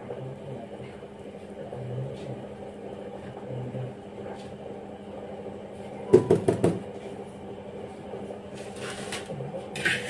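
Cake batter pouring from a glass bowl into an aluminium cake tin, then a silicone spatula knocking and scraping against the metal tin and the bowl. There is a quick run of sharp knocks about six seconds in and softer scraping near the end, over a steady low hum.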